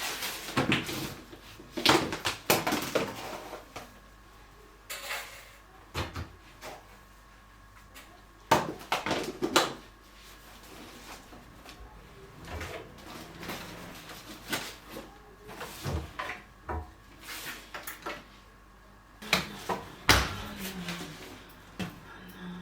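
Irregular knocks, clicks and clatters of household things being handled and set down in a small room, with quieter gaps between.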